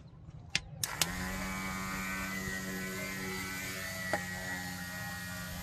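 Small DC motor of a homemade can air boat starting up and spinning its propeller. A few clicks come first, then about a second in the motor starts and runs steadily at one pitch, with a single click a little later.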